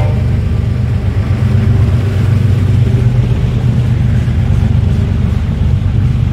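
Freight train's refrigerated boxcars rolling past at close range, a steady low rumble of steel wheels on rail.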